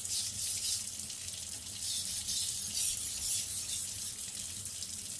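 Steel knife blade being pushed and pulled across a wet 1000-grit King whetstone: a rasping hiss that swells and fades with each of several sharpening strokes.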